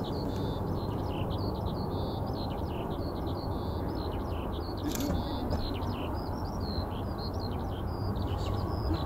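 Small birds chirping and twittering continuously in many quick, high notes over a low steady rumble, with one short click about five seconds in.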